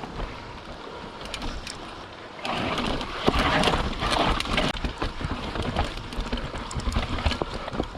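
YT Capra 29 full-suspension mountain bike descending a rough trail: tyres rolling over dirt and rocks with the bike rattling and clattering in quick irregular knocks, over rushing noise. It gets louder and rougher about two and a half seconds in, then settles back.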